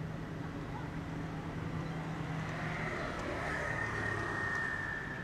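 A motor vehicle's engine running with a steady low hum. A thin high tone comes in about three seconds in.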